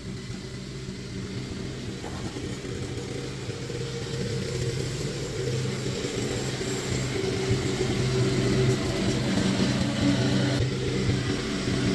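Riding lawn mower engine running steadily while mowing, getting louder as the mower drives closer.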